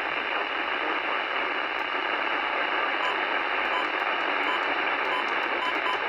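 Weather radio speaker giving out a steady hiss of static.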